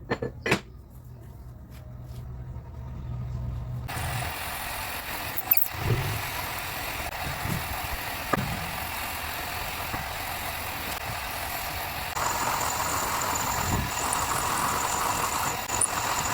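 A few clicks, then a machine starts abruptly and runs steadily. It gets louder about three-quarters of the way through, where a high whine comes in.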